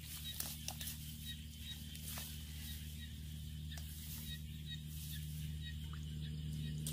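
A hoe blade chopping into wet mud, a few faint short knocks spread through, over a steady low hum.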